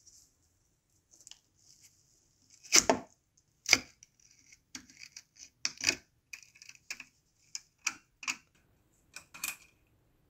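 Metal toy Colt 1911 pistol clicking and knocking as its jammed slide and recoil spring are worked loose by hand with a wooden dowel: about a dozen clicks and knocks, the two loudest about three and four seconds in, with light scraping between them.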